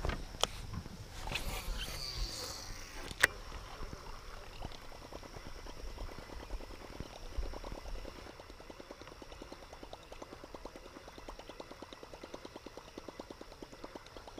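A cast and retrieve with a fishing rod and reel: a few sharp clicks and a short rush in the first few seconds, then the reel cranked steadily with a fast, even ticking as a topwater frog is worked back across the water.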